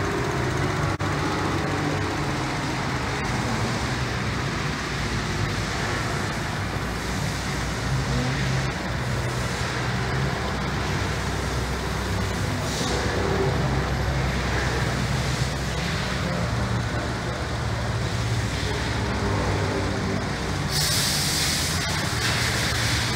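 Toyota Vios 1NZ-FE 1.5-litre four-cylinder engine idling steadily with the hood open, a brief hiss near the end.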